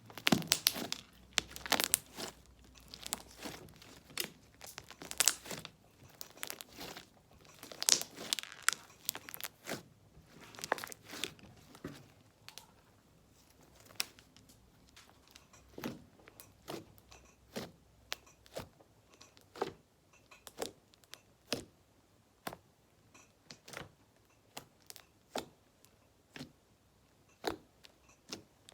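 Slime with fishbowl beads being pressed and stretched by hand, giving a run of sharp crackling clicks and pops as air pockets burst. They come thick and fast for about the first ten seconds, then more sparsely.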